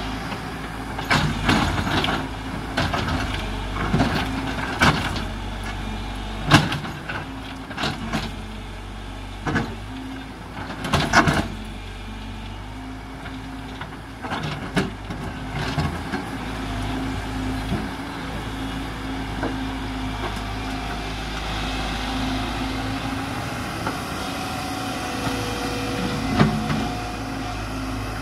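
JCB tracked excavator's diesel engine running steadily under load while the steel bucket digs into earth and rubble. Sharp clanks and knocks of the bucket striking stones come repeatedly in the first half; the second half is mostly the steady engine.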